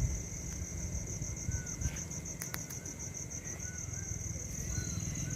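Cricket chirping in a steady, rapid pulse, about eight pulses a second, over a low rumble. Two sharp clicks come about two and a half seconds in.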